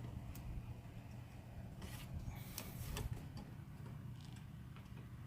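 Small plastic clicks and rubbing as a replacement headlight bulb is twisted and worked into its socket in the headlight housing, most of them about two to three seconds in, over a low steady hum.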